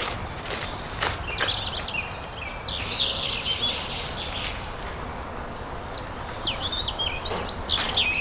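Small birds chirping and twittering in quick, high runs, in two spells, over a steady outdoor hiss, with a few sharp clicks or knocks between them.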